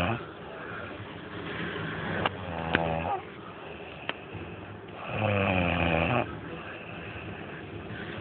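A sleeping woman snoring: long, low, rattling snores about every four seconds, a softer one with a few sharp clicks a couple of seconds in and a loud one past the middle.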